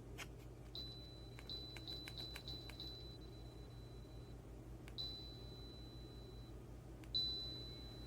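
Electronic beeps at one high pitch from a touch-control humidifier's panel. One starts about a second in and rings for a few seconds with several quick clicks over it, another comes about five seconds in, and a louder one comes near the end. A steady low hum runs underneath.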